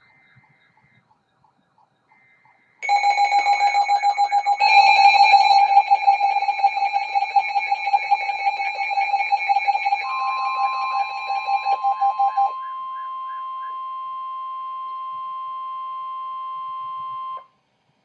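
Weather alert radios sounding their flash flood warning alarms: rapid pulsing electronic beeps in several pitches start about three seconds in, joined about ten seconds in by a steady single-pitch warning tone. Everything cuts off suddenly near the end.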